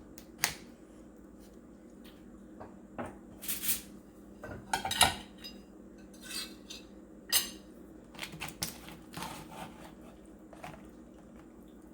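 Metal serving utensils clinking and scraping against a lasagna pan as the lasagna is cut and lifted out: scattered, irregular clinks with a few short scrapes.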